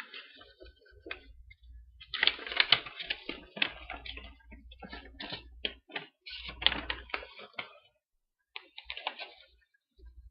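Paper packaging and a folded paper duel mat being handled, giving rapid, irregular crinkling and crackling with a few soft thumps. The handling runs for several seconds, pauses, then comes back briefly near the end.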